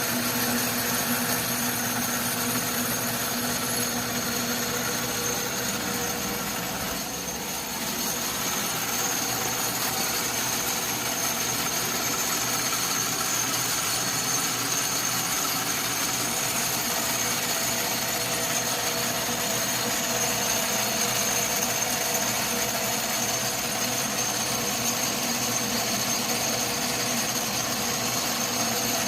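Atlas metal lathe running steadily, a continuous machine hum with a high whine, dipping slightly for a moment about seven seconds in.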